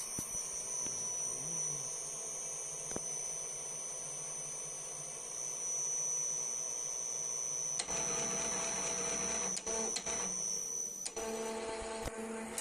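Small CNC milling machine running, with a high steady whine and stepper-motor drive noise. The sound gets louder and rougher about eight seconds in and shifts again about eleven seconds in.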